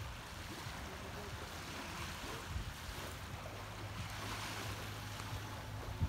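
Small waves of a calm sea washing steadily on a sandy shore, with a low steady hum underneath.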